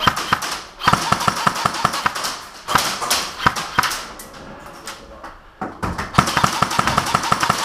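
Airsoft guns firing in rapid strings of sharp cracks, several a second, in two long volleys with a short lull between them.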